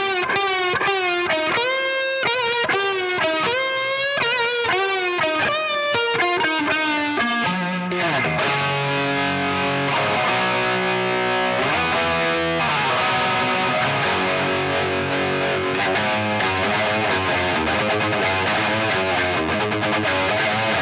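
Distorted electric guitar: a lead line of single notes with bends and vibrato, then, about eight seconds in, heavier held chords with a couple of sliding notes.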